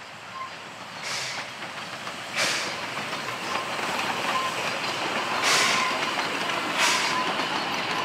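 Narrow-gauge Beyer-Garratt steam locomotive and its train passing close by: a few loud hissing bursts of steam exhaust over a steadily growing rumble and clatter of carriage wheels on the rails.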